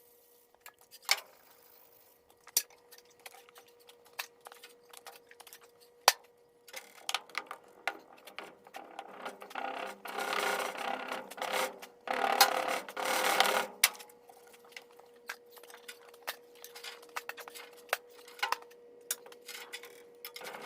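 Hand work on a sand mold: scattered light taps and knocks on wood and metal, with a few seconds of scraping and rubbing in the middle. A faint steady hum runs underneath.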